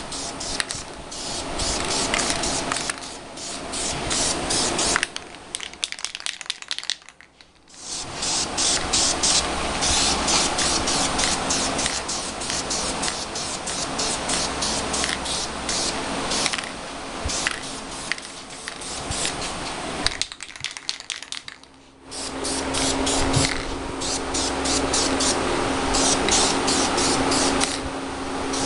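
Aerosol spray-paint can hissing in quick pulsing passes as a heavier coat of paint goes on, stopping twice for a couple of seconds before spraying again.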